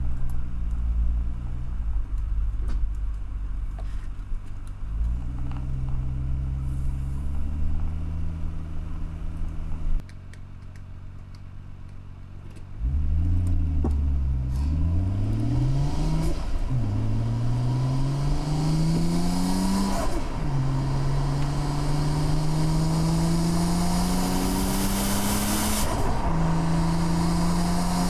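Car engine driving along steadily, then, after a few quieter seconds about ten seconds in, accelerating through the gears: its pitch climbs and drops back at each of three gear changes, with road and wind noise building as the speed rises.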